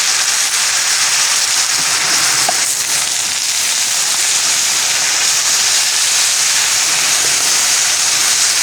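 Steady sizzling of red cabbage, onions and sausage in a pan on a camp burner, just after red wine vinegar has been poured in. Rain is pattering on the tarp overhead.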